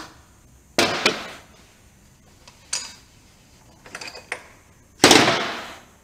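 Hammer strikes on metal at a motorcycle's rear axle: a few sharp knocks spaced irregularly, the loudest about five seconds in, dying away over about a second.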